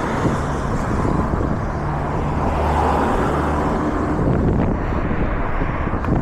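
Wind rushing over an action camera's microphone, mixed with road noise, while riding an e-bike in strong wind. A low, steady hum joins it from about two seconds in until about four and a half seconds in.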